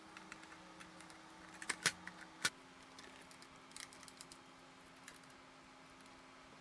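Light clicks and taps of 3D-printed PET-CF plastic body panels being handled and pressed onto a scale RC car's body, with two sharper clicks about two seconds in.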